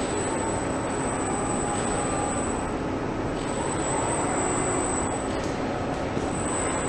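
Steady machine noise of an automated electric-motor assembly line with industrial robot arms at work, a dense even hum with a thin, steady high whine above it.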